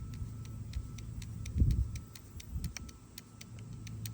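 Hand-pumped hydraulic wire crimper working on a battery cable terminal: a rapid series of light clicks, several a second, with one dull thump about a second and a half in.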